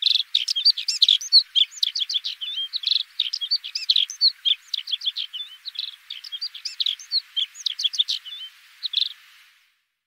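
Dunnock singing: a fast, high, jumbled warble of short twittering notes that runs on almost without a break and stops near the end.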